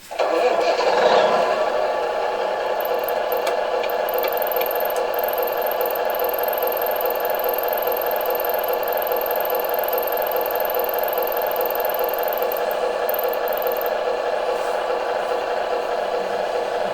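Tamiya Multi Function Unit's simulated truck engine sound played through its small onboard speaker, starting up suddenly and then idling steadily.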